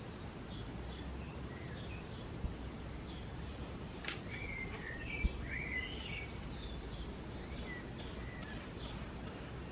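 Small songbirds chirping and twittering in quick short calls over a steady low background rumble, with a sharp click about four seconds in and a short low thump a second later.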